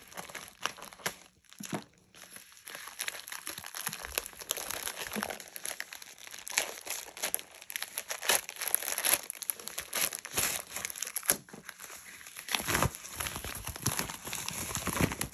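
Plastic bubble mailer being cut open with scissors along its top edge, then pulled open and handled, its plastic crinkling in irregular bursts as a plastic-sleeved item is slid out.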